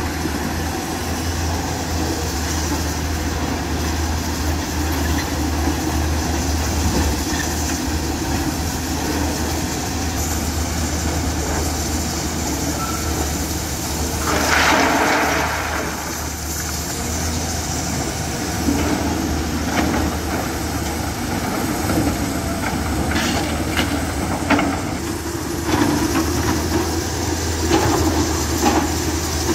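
Hyundai excavator's diesel engine running steadily under load, with a brief louder surge about halfway through and rocks clattering and knocking near the end as its bucket works the pile of crushed stone.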